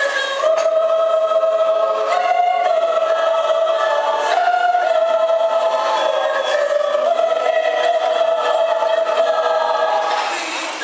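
Mixed choir of men and women singing in harmony, holding long sustained notes, with a brief break for breath near the end.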